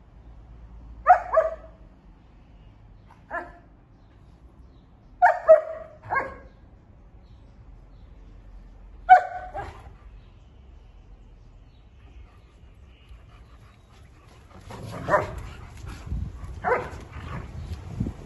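German Shepherd dogs barking in play: short single and double barks spaced a few seconds apart. Near the end more barks come over a rustling, scuffling noise as the dogs tussle.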